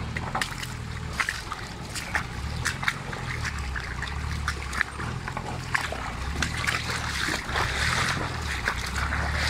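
Nissan Patrol 4x4 engine running low and slow while its tyres crunch and knock over loose river stones. Water splashes around the wheels, growing louder over the last few seconds as the truck rolls into the shallow stream.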